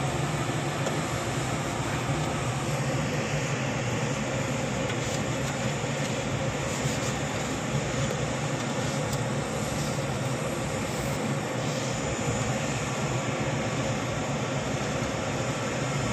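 Steady drone of running aircraft machinery in a Dash 8 Q400 cockpit: a low hum under an even hiss, with no change in level.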